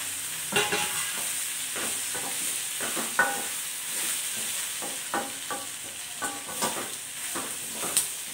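A metal spatula scrapes and knocks against a steel kadai, stirring grated coconut into sautéed vegetables over a steady frying sizzle. The strokes come irregularly from about half a second in, some with a brief metallic ring.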